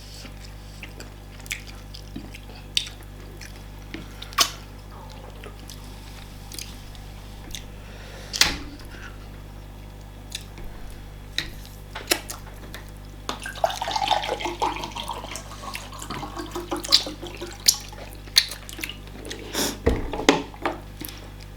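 Close-up wet eating sounds of fufu with banga soup: scattered sharp smacks and clicks every few seconds, with a busier stretch of wet mouth sounds a little past the middle.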